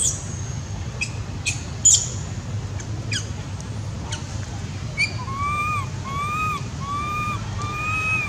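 Baby macaque calling: a few short, sharp squeaks, then from about five seconds in, four pitched cries in a row, each about half a second long and rising then falling.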